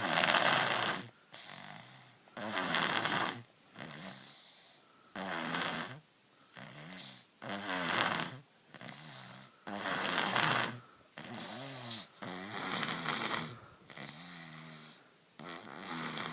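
A baby snoring in regular breaths: a loud, rasping snore about every two and a half seconds, each followed by a softer breath.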